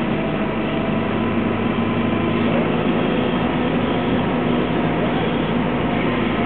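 Compact wheel loader's diesel engine running steadily as the machine drives with its loaded bucket raised.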